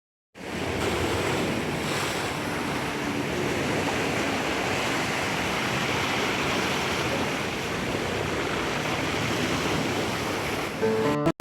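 Sea surf washing ashore, a steady rush of water noise, with wind buffeting the microphone. It cuts in abruptly about half a second in.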